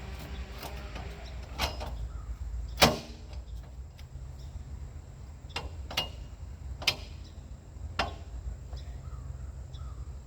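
Dirt being wiped and knocked off the bark of a spruce log: scattered sharp knocks and scrapes, the loudest about three seconds in, over a steady low rumble.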